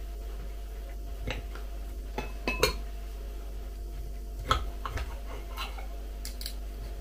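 Steel knife and fork clinking and scraping on a glass plate while cutting roast beef. There are a few short sharp clinks, the clearest about two and a half seconds and four and a half seconds in.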